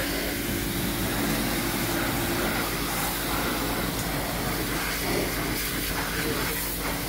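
Pressure washer running steadily: a motor hum under the hiss of the water jet.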